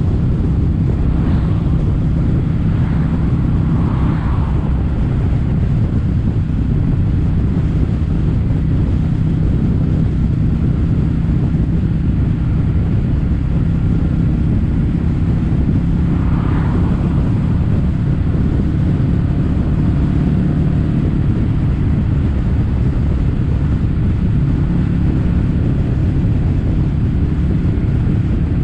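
Kawasaki W800's air-cooled parallel-twin engine running steadily through stainless-steel Cabton-style silencers, with wind rushing over the microphone.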